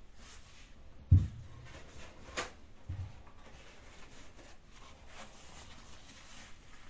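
Soft rustling and scraping in a small room, with a low thud about a second in, a sharp click, and a second, weaker low thud.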